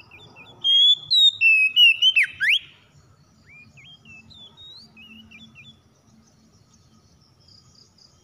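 Oriental magpie-robin singing a run of clear whistled notes that rise and fall. The loudest phrase comes about one to two and a half seconds in and ends in a steep swooping note. Softer whistles follow and stop a little before the end.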